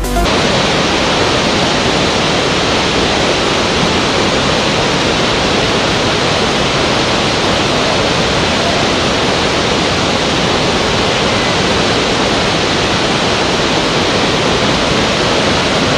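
Steady, even rush of falling water from a large waterfall and rapids, unbroken, with no change in level.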